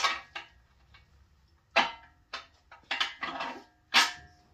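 Bare cast engine block of a 5.3 L LS V8 being handled on an engine stand: a series of sharp metal clanks and knocks, about five, the loudest near the middle and near the end, some ringing briefly.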